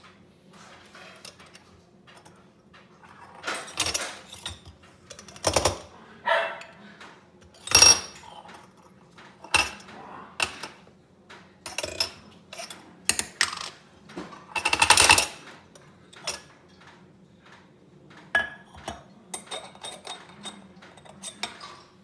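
Stainless-steel moka pot parts being handled on a stone countertop: irregular metallic clinks and clanks, some with a short ring, over a faint steady low hum.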